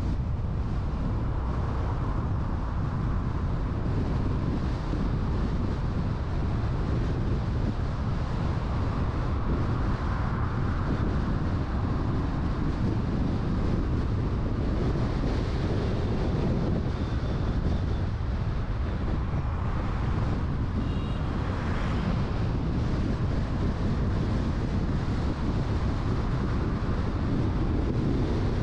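Steady wind rumble on the microphone over street traffic noise, with no single event standing out.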